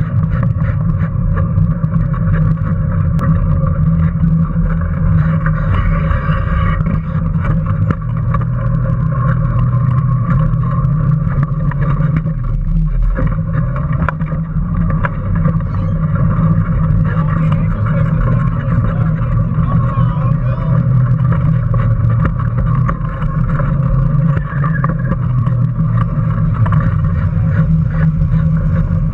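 Onboard sound of a small electric Power Racing Series car racing: its motor and drivetrain make a steady drone with a constant whine, over a rumble of the wheels and chassis on asphalt.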